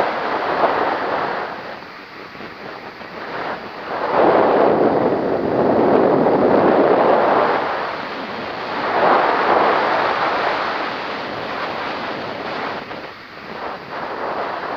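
Wind rushing over the microphone in flight, a loud hiss that swells strongly from about four seconds in to about eight, again around nine to ten seconds, then eases.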